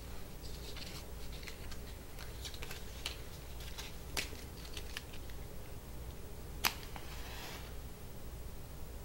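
Light clicks and rustles of handling, then a sharp click and a brief hiss about two-thirds of the way through: a flame being struck to light the match stuck in the cork. A steady low hum lies underneath.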